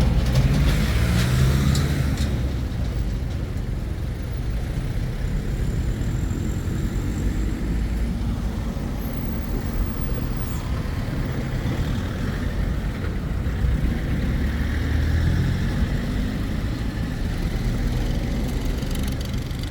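Street traffic: motor vehicles passing over a steady low rumble, with one engine swelling and fading near the start and another around fifteen seconds in.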